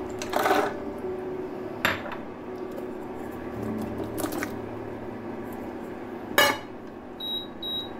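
Cashews and then onion pieces tipped from bowls into a steel pot of water, with several sharp clatters of bowl and food against the pot, the loudest a little after six seconds. A steady low hum runs underneath, and two short high beeps come near the end.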